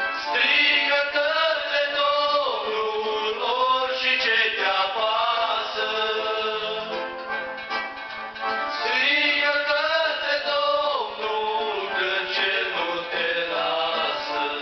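A man sings long, slow phrases with a wavering melody into a handheld microphone, with electronic keyboard accompaniment.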